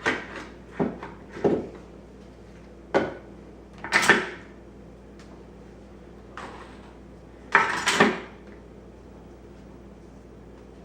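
Metal cutlery clinking and clattering as it is taken from a dishwasher and dropped into a drawer, in separate irregular clatters with a louder one about eight seconds in, then quiet room tone.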